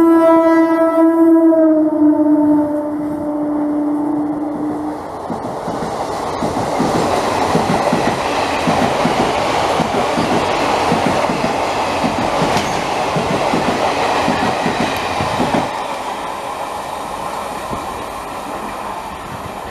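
A WAM4 electric locomotive's air horn sounds a long blast that drops in pitch as the engine passes and stops about five seconds in. Then the express coaches rush past with wheels clattering rhythmically over the rail joints. The clatter fades after about fifteen seconds as the last coach draws away.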